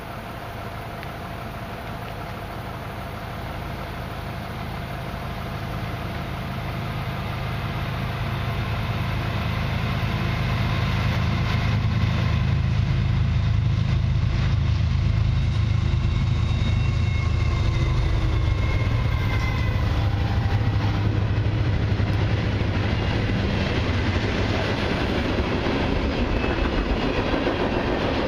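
CN freight train approaching and passing: the two diesel locomotives grow steadily louder for about twelve seconds, and their engine pitch drops as they go by. Then the wheels of a long string of tank cars and covered hoppers roll past on the rails.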